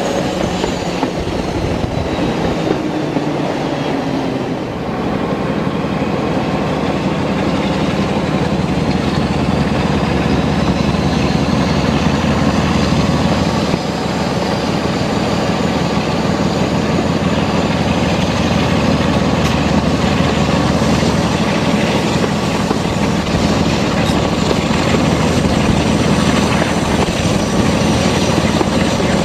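Class 47 (Brush Type 4) diesel locomotive's Sulzer V12 engine working steadily with its deep thrash, heard from just behind the engine on the moving locomotive, mixed with the rush of running along the track. A faint high whine rises and falls above it.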